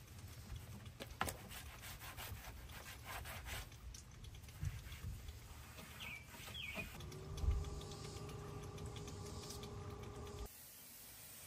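Microfiber towel wiping a car's grille and bumper, with light clicks and handling knocks. About seven seconds in, a steady hum with several overtones starts; it stops abruptly about a second before the end.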